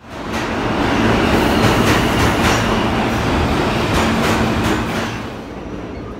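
New York City subway train running alongside the platform, a loud rumble with wheels clacking over the rails, easing off near the end.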